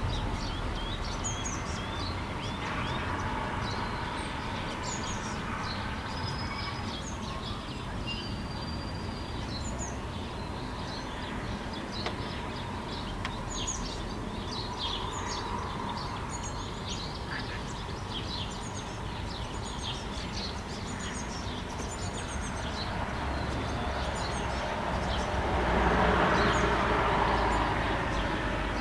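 Many small birds chirping and calling over a steady low background rumble. Near the end a rushing noise swells up and fades.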